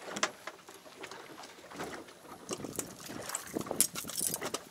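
Water slapping and irregular knocks around a small boat at sea.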